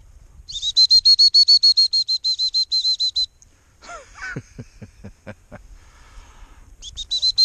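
A dog-training whistle blown in a rapid trill of short high pips, about eight a second, twice: once for about two and a half seconds near the start and again near the end. It is the handler's recall signal to a bird dog. A few short, lower sounds come between the two trills.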